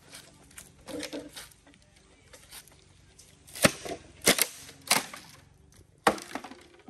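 Green bamboo poles being split with a machete: sharp cracking knocks, a few lighter ones about a second in, then four loud cracks in the second half.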